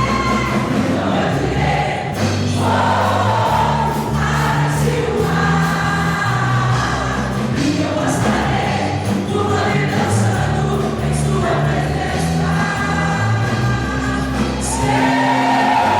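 Music with a choir singing over a bass line that moves in held notes about a second each.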